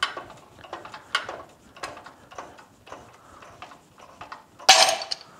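Irregular metallic clicks and clacks from working a hydraulic shop press and the bearing separator on it, with one louder, harsher clatter near the end.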